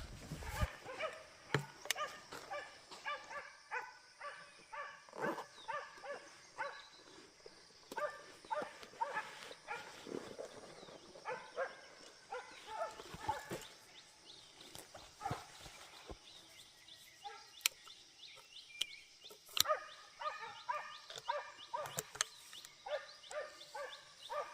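Hunting dogs barking rapidly and repeatedly, several barks a second, baying at a wild boar, with a few sharp knocks among the barks.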